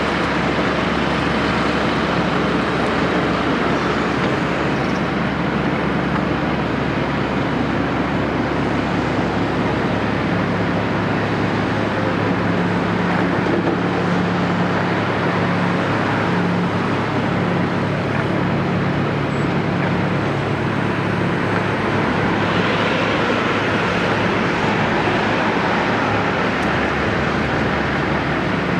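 Caterpillar 329E excavator's diesel engine running steadily with mechanical and hydraulic noise; its note changes about ten seconds in as the deepest rumble drops away.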